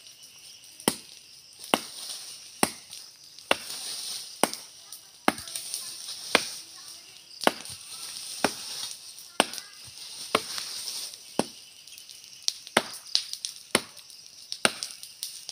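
A thin tree trunk being chopped near its base with a blade: sharp wooden chops at a steady pace of about one a second.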